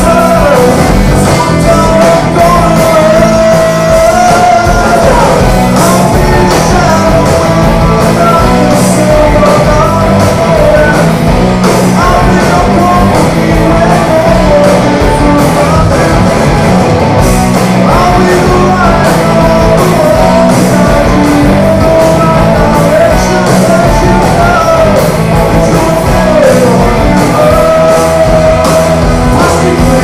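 Rock band playing live and loud: a male singer's voice over electric guitars, bass and a steady drum beat.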